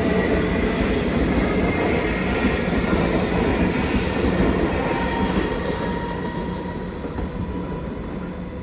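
Comeng electric suburban train running on the rails, a steady rumble with a faint high whine, fading as it pulls away.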